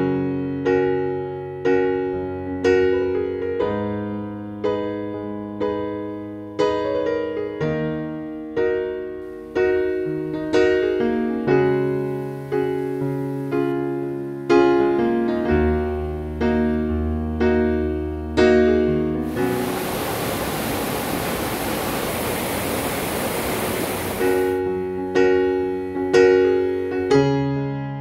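Background piano music, single notes and chords each ringing and fading. About two-thirds of the way through, the piano gives way for about five seconds to a steady rushing noise, then resumes.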